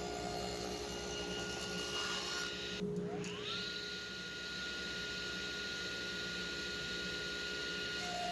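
Woodworking power tool's electric motor running with a steady whine. About three seconds in the sound breaks off, then the motor starts and spins up, its whine rising in pitch and settling at full speed.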